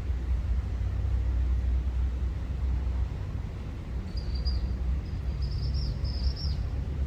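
Rainstorm with a steady low rumble of thunder under the hiss of rain. A bird chirps several times in a short run from about four seconds in.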